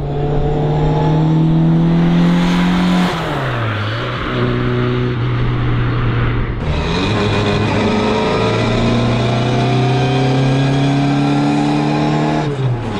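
Classic Mini Cooper S rally car's engine revving hard under acceleration, its pitch climbing and then dropping at upshifts about three seconds in and again near the end, with the straight-cut gearbox whining.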